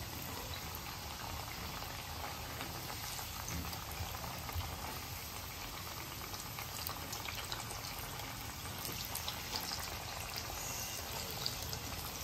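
Slices of steamed colocasia-leaf and gram-flour roll (alu vadi) deep-frying in hot oil in a kadhai: a steady bubbling sizzle with small crackles.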